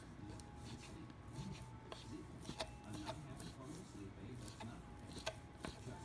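Kitchen knife slicing turkey bacon on a wooden cutting board: a handful of irregular, sharp taps as the blade meets the board.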